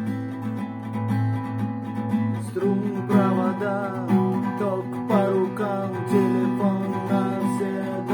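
Acoustic guitar strummed in a galloping rhythm, playing a song's intro chords; about two and a half seconds in, a higher melody line comes in over the strumming.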